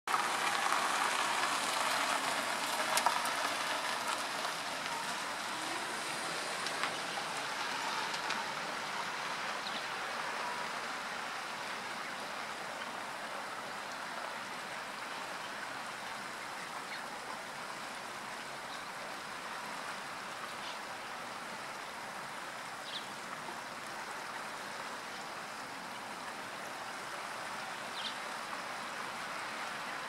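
Steady rush of flowing water, louder in the first few seconds and then even, with a few faint, short high notes later on.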